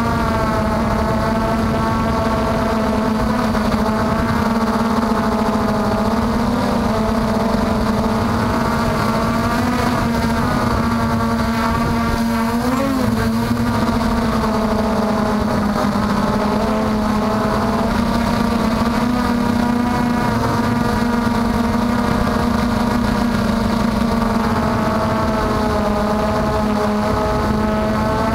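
Brushless motors and propellers of an MJX Bugs 3 quadcopter whining in flight, heard up close. The pitch drifts up and down with the throttle, with a quick wobble about halfway through.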